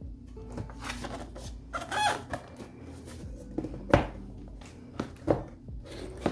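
A box being handled and opened: several sharp taps and knocks, with a brief squeaky rubbing sound about two seconds in.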